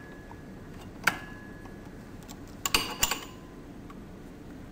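Steel wheel puller clinking against a pump impeller as its three legs are fitted around the impeller's edge. There is one sharp clink with a brief ring about a second in, then a few quick clinks together about three seconds in.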